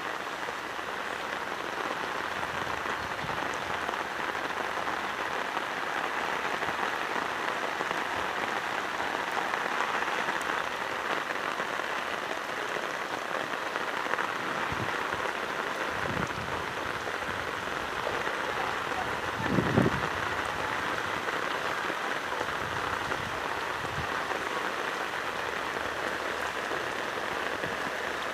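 Heavy rain pouring steadily, an even hiss, with one brief louder sound about twenty seconds in.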